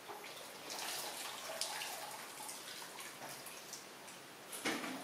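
Water poured from a metal kettle into a plastic basin, splashing and sloshing with many small irregular splashes. A louder sudden sound comes near the end.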